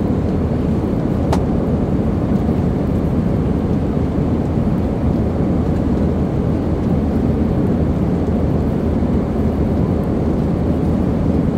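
Steady roar of an Airbus A320's jet engines and rushing airflow heard from inside the cabin, the aircraft climbing after takeoff.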